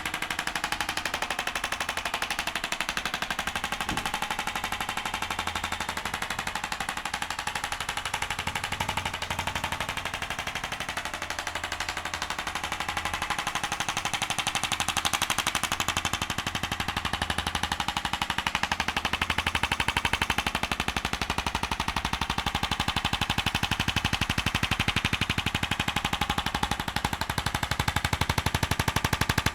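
ArthroStim handheld adjusting instrument firing a rapid, steady stream of mechanical taps, a machine-gun-like clatter, as it thrusts into the cervical vertebrae of the neck. It keeps going without a break and gets slightly louder in the second half.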